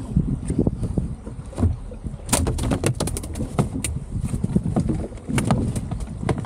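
Wind buffeting the microphone and water slapping against an aluminum boat hull, a dense low rumble, with a run of sharp clicks and knocks from about two seconds in.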